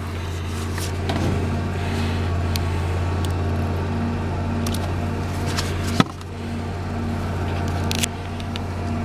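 Trigger spray bottle of bubble leak detector squirted several times onto a heat pump's reversing valve, with short spritzes and sharp clicks, the loudest about six seconds in. Under it runs a steady low machine hum.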